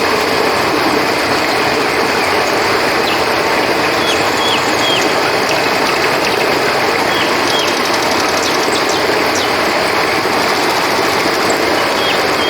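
A river rushing steadily, with a continuous high chirring of crickets over it. Short high chirps come in pairs three times.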